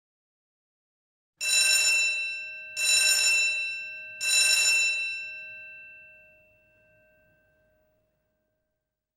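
School bell sound effect from the Audio Pro library: the bell rings in three short bursts about a second and a half apart, and the last one rings on and dies away over a few seconds.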